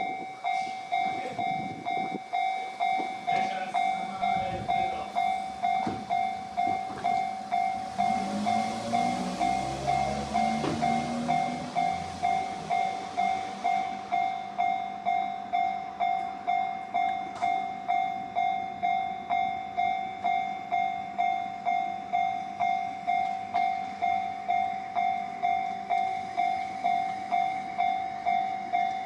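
Japanese level crossing's electronic warning bell ringing in a steady repeating clang, about one and a half strikes a second. About eight seconds in, a train passes over the crossing: rail noise and a motor whine rising in pitch, fading by about fourteen seconds in.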